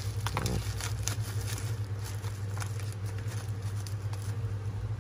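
Plastic bubble wrap crinkling and crackling in quick irregular bursts as it is pulled off a smartphone by hand, stopping near the end, over a steady low hum.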